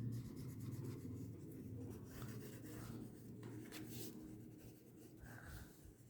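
Faint scratching of a coloring tool stroking across paper, in several separate strokes, over a low steady hum.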